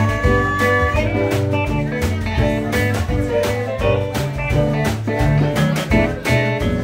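Live band playing: two electric guitars over a drum kit keeping a steady beat.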